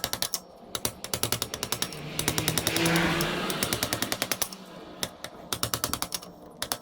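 Ratchet wrench clicking in quick runs, about ten clicks a second, as it is worked back and forth to unscrew a motorcycle oil filter that has just started to turn. There is a louder noisy stretch in the middle.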